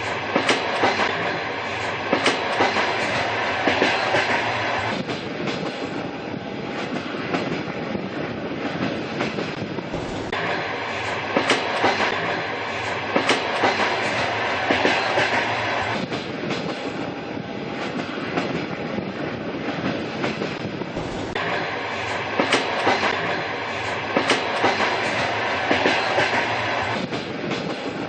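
Train running on rails: a steady rumble with sharp clickety-clack knocks from the wheels over rail joints. A brighter, hissier stretch comes and goes about every eleven seconds.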